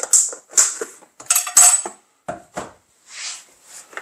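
Metal utensils and stainless steel clinking and scraping on the counter: several sharp clinks, with one short metallic ring about a second and a half in.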